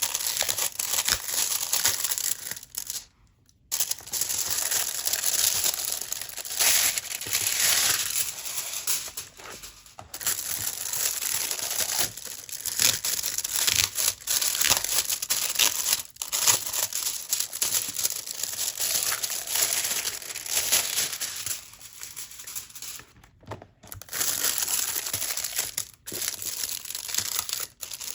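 Packaging of a photo-folio being unwrapped by hand, crinkling and tearing almost continuously, with two brief pauses.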